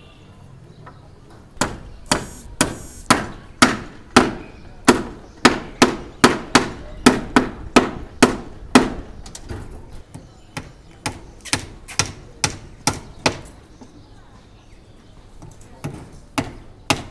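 Hand hammering, with sharp strikes at about two to three a second. A long run of loud blows is followed by a short pause, then lighter blows, then a further pause before the strikes start again near the end.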